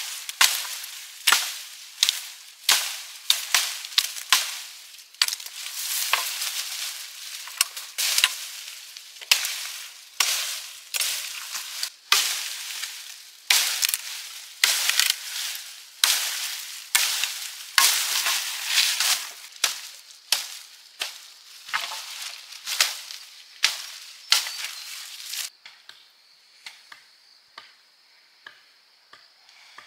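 Repeated sharp chopping blows, about one every 0.7 s, each followed by a short hissing rustle. They stop abruptly about 25 seconds in, leaving only faint ticks and a steady high thin tone.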